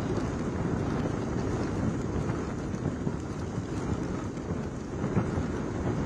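Gusty cyclone wind rushing and buffeting the microphone, with rain, in a steady low rumble that swells and eases with the gusts.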